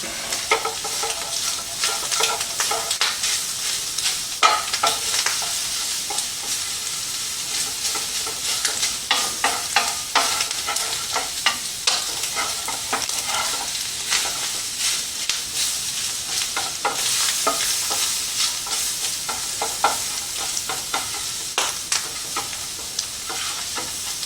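Shredded beef with vegetables and black beans sizzling in a frying pan while a utensil stirs and breaks up the meat, with frequent irregular clicks and scrapes of the utensil against the pan.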